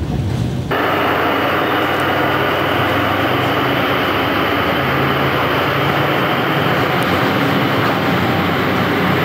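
A MÁV class M41 diesel locomotive's engine running steadily at close range, a loud even drone with a low hum. It starts abruptly, after a brief moment of moving-train noise is cut off.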